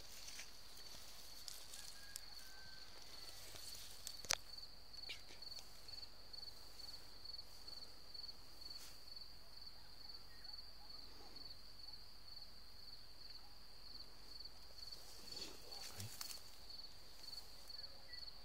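Insects chirring: one steady, high, finely pulsing trill that never stops. A single sharp click about four seconds in, and brief rustling near the end.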